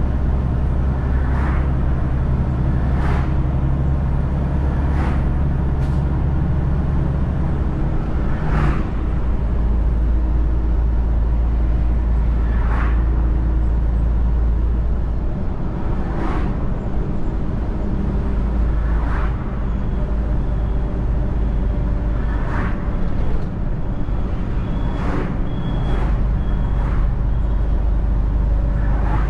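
Semi-truck engine droning steadily while driving on the road, its low note shifting a few times, with short sharp knocks every few seconds.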